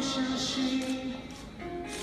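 A man singing a long held note into a Bluetooth karaoke microphone over a backing track; the note breaks off about a second and a half in and a new one starts just before the end.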